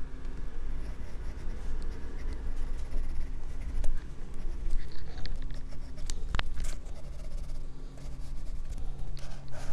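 Pencil scratching and rubbing on drawing paper in many short, quick strokes, picked up by a microphone on the drawing hand's wrist. One sharp tap stands out about six seconds in.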